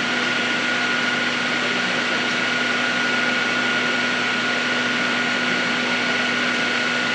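Metal lathe running steadily: a constant hum with a high, unchanging whine over the machine noise.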